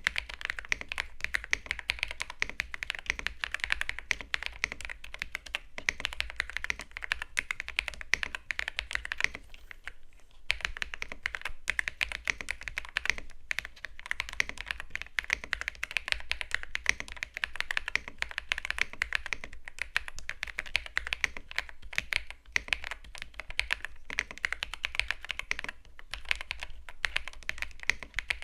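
Mechanical keyboard being typed on fast and continuously, a steady stream of key clicks and clacks with a short pause about ten seconds in.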